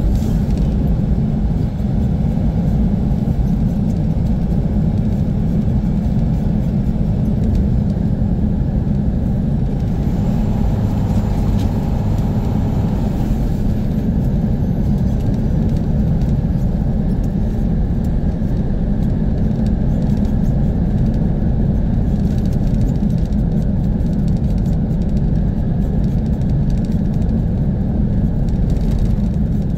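Semi-truck diesel engine and road noise heard from inside the cab while driving, a steady low rumble.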